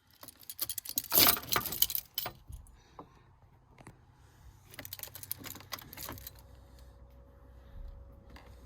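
Rapid jingling, rattling clicks in two bursts: the first and loudest runs up to about two seconds in, and a weaker one comes near the middle. After that a low steady hum sets in.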